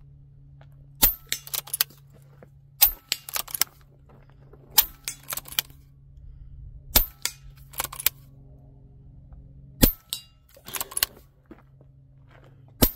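Moderated .22 Daystate Huntsman Revere PCP air rifle fired six times, about two seconds apart. Each shot is a sharp crack followed by a few quick clicks.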